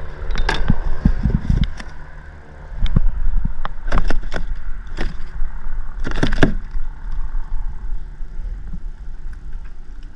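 Irregular knocks and bumps over a steady low rumble as a fish is landed and handled in a kayak, with clusters of sharp knocks about half a second in, about four seconds in and about six seconds in.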